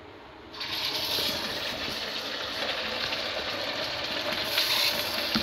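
A semolina-and-potato kachori dropped into hot oil in a kadhai: the oil starts sizzling suddenly about half a second in and keeps frying steadily.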